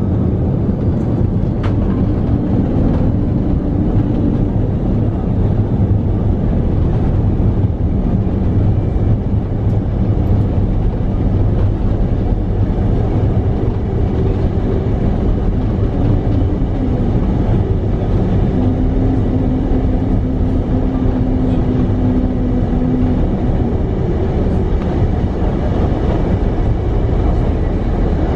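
Steady low rumble inside the cabin of an Airbus A330-200 rolling along the runway after landing: engines and landing gear on the pavement heard together, with faint held engine tones over it.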